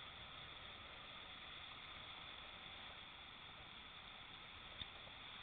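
Faint, steady rush of the Green River's whitewater rapids, with a single small click a little before the end.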